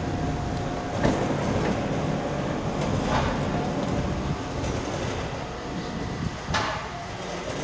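Steady, rumbling background noise of a busy race-car pit garage, with a few sharp knocks about one, three and six and a half seconds in, as mechanics work on the car.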